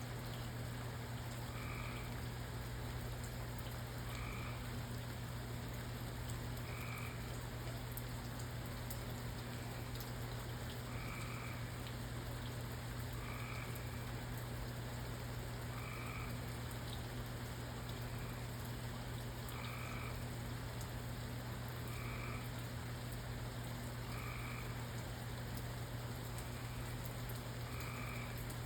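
A frog calling with short, evenly spaced croaks about every two seconds, over a steady hiss of rain and a low steady hum.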